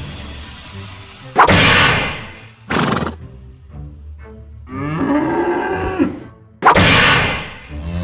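Added crash sound effects: three sudden loud clangs with ringing tails, about a second and a half, just under three and six and a half seconds in. Between them a cow moos, over background music.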